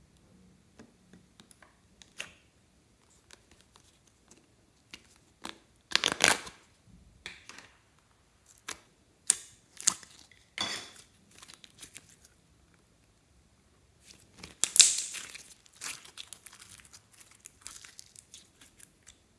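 Gold foil wrapping crinkling and tearing as it is peeled off a ball of slime, in several sharp bursts with quiet gaps between; the loudest burst comes about three-quarters of the way through.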